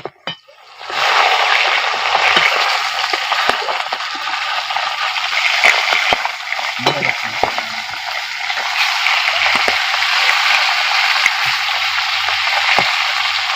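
Food sizzling in hot oil in a pan, starting about a second in, with the clicks and scrapes of a spatula stirring it.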